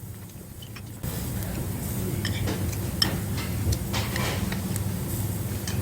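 Restaurant background noise: a steady low hum with scattered light clicks and ticks and faint voices in the background. It gets louder about a second in.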